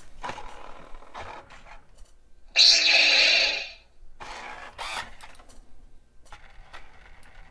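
Spin Master Legendary Yoda animatronic toy in warrior mode: its body motors whir as it moves. About two and a half seconds in, its speaker plays a loud, steady electronic lightsaber hum for about a second as the blade lights up.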